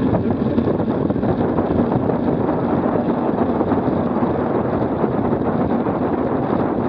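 Steady wind rush on the microphone of a camera riding on a moving road bike, with the hum of tyres on tarmac underneath.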